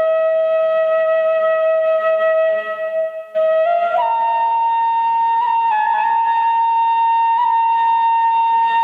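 Central Javanese suling (bamboo flute) music playing long held notes: one note sustained for about three seconds, a short break, then a higher note held.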